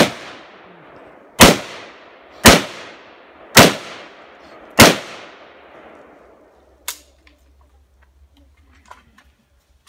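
Rifle fired in aimed single shots: five shots roughly a second apart, each followed by a long echoing tail, then one fainter, shorter crack about seven seconds in.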